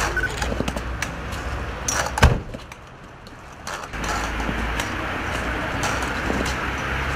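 Street background noise with scattered light clicks and knocks of aluminium walking frames set down on paving stones, and one loud thud about two seconds in.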